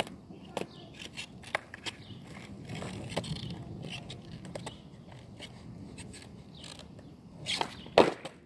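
Skateboard on street pavement: scattered clacks and knocks of the board's tail and wheels hitting the ground during flip-trick attempts, with a low rolling rumble in the middle. The loudest knocks come near the end, as the board is caught and handled close by.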